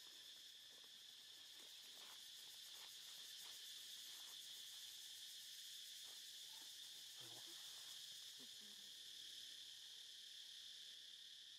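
Faint, steady insect chorus: a continuous high-pitched buzzing drone of crickets or cicadas, with a few faint scattered clicks and small knocks.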